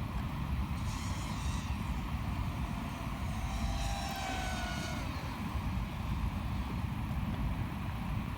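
FPV quadcopter drone's motors whining in flight over a heavy low rumble. A pitched whine rises out of the rumble about three seconds in, sags slightly and fades after about two seconds.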